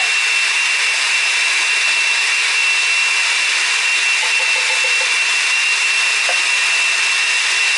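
Countertop blender motor running steadily as it purees strawberries with cold water, a constant whirring with a steady high whine.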